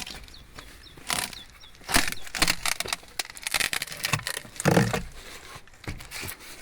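Old, rotting wooden door frame being wrenched out by hand: a run of irregular knocks, scrapes and cracks of timber, the heaviest about three-quarters of the way through.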